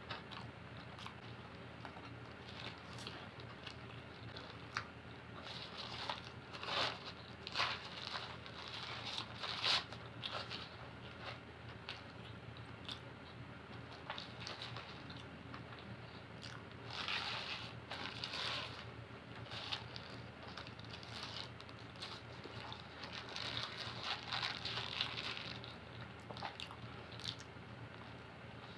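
Close-up chewing and biting of a falafel wrap, in a few bouts of short noisy bursts.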